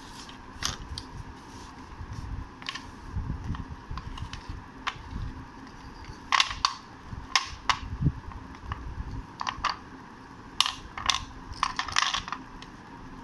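Slate pencils and thin slate triangles clicking and clacking against each other as they are handled, a string of sharp separate taps, busiest in two clusters in the middle and near the end.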